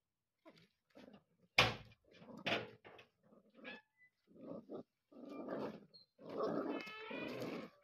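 Two puppies growling in short bursts as they tug at a dog collar strap, with a brief high yelp near the end. A sharp knock about a second and a half in.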